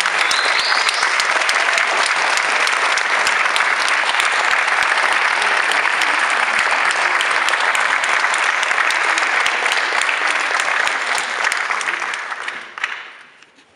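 Audience applauding: steady, dense clapping that dies away about a second before the end.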